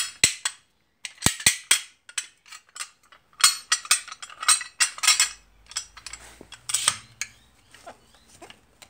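Rummaging and handling of hard objects: a quick run of clinks, knocks and rattles that starts and stops irregularly.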